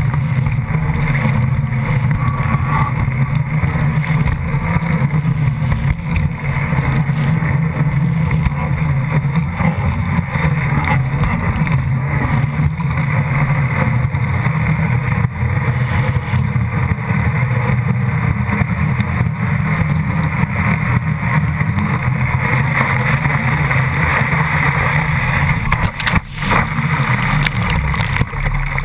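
Rushing water and spray from a barefoot water skier's feet skimming the river at towing speed, heard close up, over a steady motorboat engine drone.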